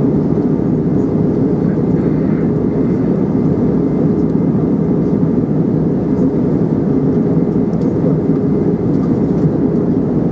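Steady cabin noise inside an Airbus A320 in flight: an even, deep rumble of engines and rushing air, heard from a window seat over the wing, with a faint steady hum through it.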